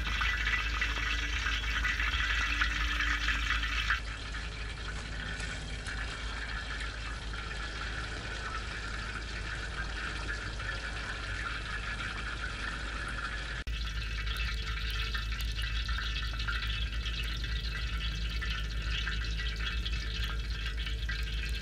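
A dove frying in shallow oil in a large metal disc pan over a wood fire: a steady sizzle. Its tone and level shift abruptly about four seconds in and again near fourteen seconds.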